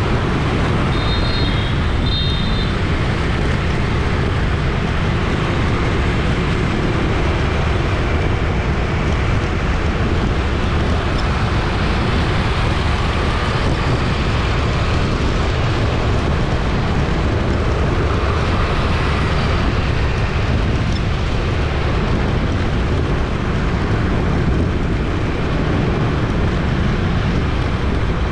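Dense city street traffic running steadily, a continuous low rumble of passing vehicles. Two short high beeps come about a second in.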